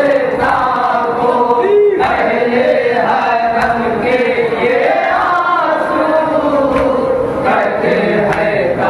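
A group of men chanting a Shia mourning lament (nauha) in unison, a lead reciter's voice over the crowd's.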